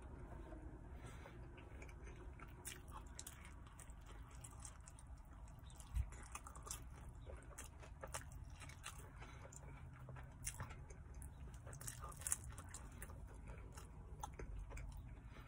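A person chewing a mouthful of pepperoni pizza with the mouth closed: faint, irregular wet clicks and smacks of chewing. A single soft thump about six seconds in.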